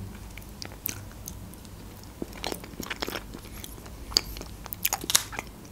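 Close-miked chewing of a soft Japanese mochi made from rice flour: scattered wet mouth clicks and smacks, busier about halfway through and again near the end.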